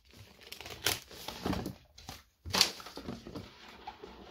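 Cardboard speedcube box being handled and slid open: paper-on-paper scraping and rustling, with a few sharper scrapes about one, one and a half, and two and a half seconds in.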